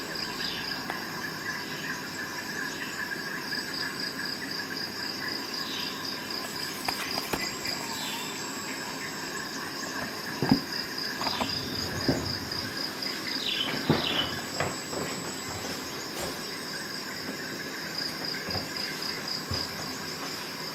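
Crickets chirping steadily in a high, even pulse. A few sharp clicks and short squeaks come in the middle.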